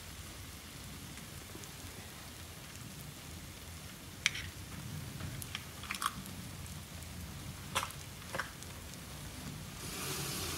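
Eggs and onion masala frying in a pan: a low, steady sizzle, with a few sharp pops and crackles from about four seconds in.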